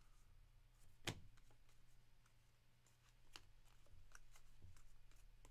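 Faint taps and clicks of baseball trading cards being flipped and handled in a stack, with one sharper tap about a second in, over a low steady hum.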